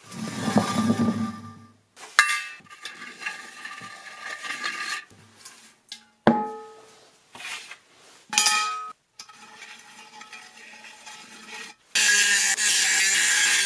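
An empty metal pony keg handled on a wooden workbench, knocking and clanking a few times with short metallic ringing. Near the end a Dremel rotary tool with a cutoff wheel starts cutting into the keg's metal top, a loud steady grinding whine.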